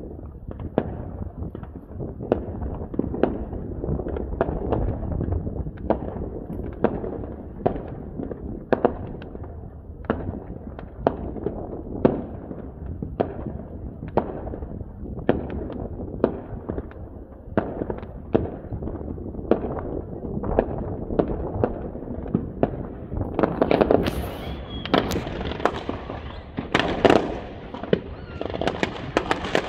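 Fireworks display: aerial shells bursting in a steady run of bangs, about one or two a second, over a low rolling rumble. A denser, louder cluster of bangs comes near the end.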